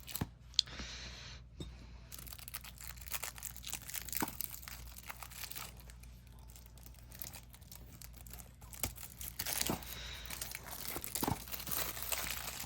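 Plastic shrink wrap crinkling and tearing as it is pulled off a 4K Blu-ray case, with irregular crackles and clicks throughout and a short tearing rip about half a second in.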